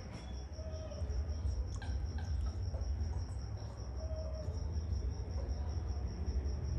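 A cricket chirping in a steady, high, pulsing trill, over a low steady rumble.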